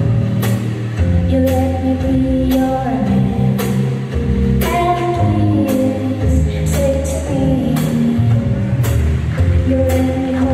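Slow foxtrot dance music with a singer, sustained notes under the melody and a sharp percussion hit about once a second.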